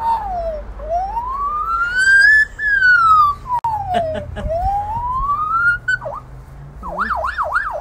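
Australian magpie mimicking an ambulance siren. Several slow wails rise and fall, then turn into a fast warbling yelp near the end.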